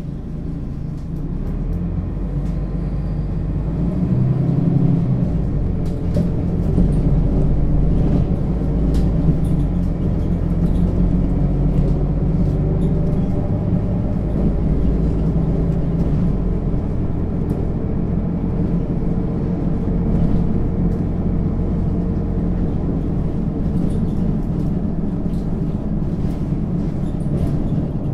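Mercedes-Benz Citaro O 530 G articulated bus's diesel engine and Voith automatic drivetrain running under way, a steady low rumble that grows louder over the first few seconds and then holds, with faint rattles and clicks.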